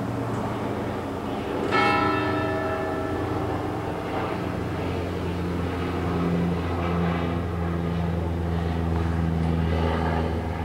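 Church bells ringing, with one loud strike about two seconds in whose tones ring on and slowly fade, over a steady low drone.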